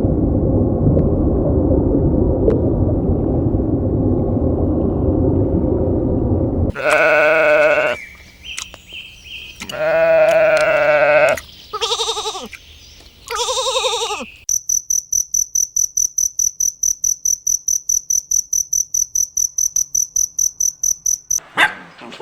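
Several bleats from a goat or sheep, each a pitched, wavering call, following a loud, steady low rumbling noise; after the bleats comes a long run of rapid, even, high-pitched chirps, about six a second.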